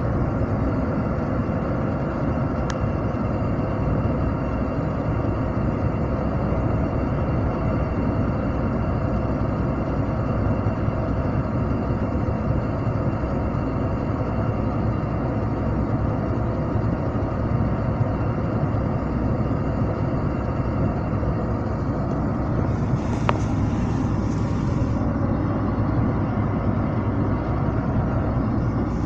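Steady engine and road noise of a vehicle driving along a snow-covered highway. About three quarters of the way through there is a brief hiss with a single click.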